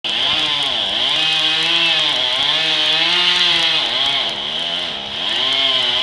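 Chainsaw cutting into a tree trunk, its engine pitch dipping and recovering several times as the chain bites into the wood.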